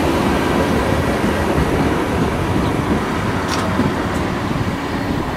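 Tram cars rolling past close by on street track: a steady, loud rumble of steel wheels on the rails.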